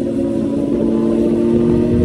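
Motorcycle engine running under way at a steady pitch, growing slightly louder, with a rough low rumble underneath.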